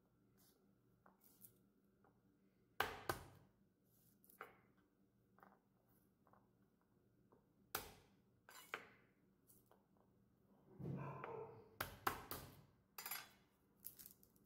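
The flat of a santoku knife smashing garlic cloves on a wooden cutting board: a few sharp knocks, about 3, 8 and 12 seconds in, with soft rustling of papery garlic skins being peeled near the end.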